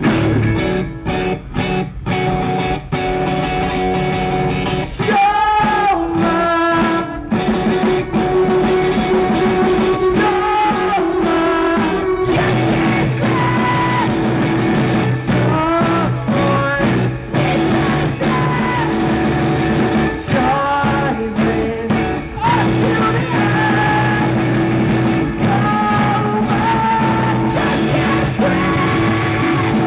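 Live post-hardcore rock band playing: distorted electric guitar, bass and drums, with a male lead vocal sung by the drummer. The opening seconds are choppy guitar hits with short gaps, and the full band with singing comes in about five seconds in.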